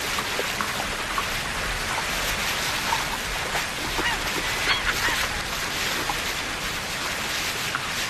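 Steady rush of river water, with short bird calls here and there.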